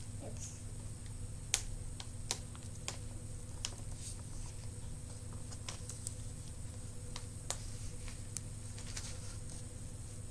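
Irregular sharp clicks and crinkles from fingers picking at a surprise egg's wrapping while it is worked open, over a steady low background hum.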